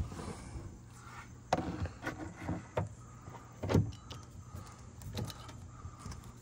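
Irregular clicks and knocks of a hand nut driver working the 7 mm bolts under the door pull of a Chevy S-10's plastic door panel, the loudest a little under four seconds in.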